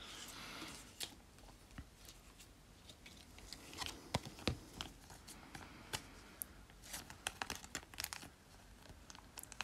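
Faint handling of a stack of Pokémon trading cards: cards sliding and flicking against each other, a soft rustle in the first second, then scattered light clicks.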